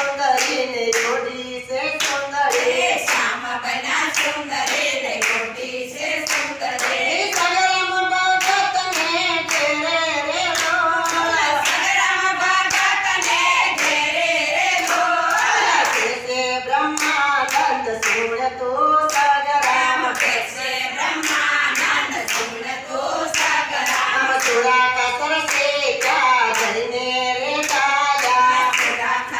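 A women's group singing a Gujarati devotional kirtan (bhajan), a lead voice on a microphone with the others singing along, kept in time by a steady beat of hand clapping and with no instruments.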